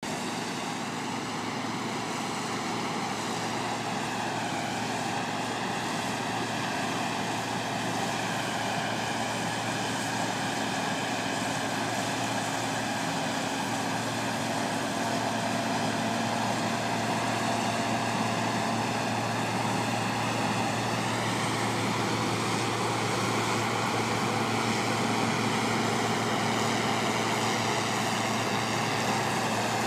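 Cotton stripper running steadily while harvesting, a continuous engine-and-machinery drone whose tone wavers twice and grows slightly louder.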